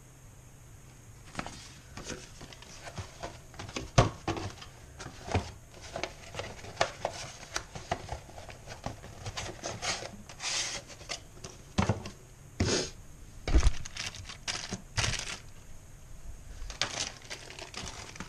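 Plastic and card retail packaging of bike parts being handled and laid out on a table: crinkling and rustling with short knocks as packs are set down. The sharpest knocks come about four seconds in and again about three-quarters of the way through.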